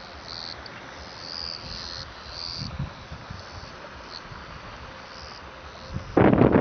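Short, repeated high chirps, from insects or birds, over a steady hiss. About six seconds in, a sudden loud rush of wind buffets the microphone.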